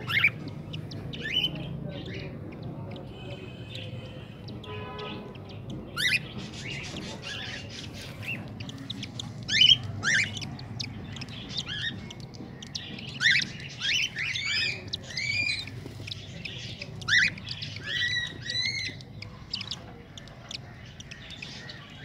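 Parrots calling: short, rising squawks, some in quick runs of two or three, more frequent in the second half.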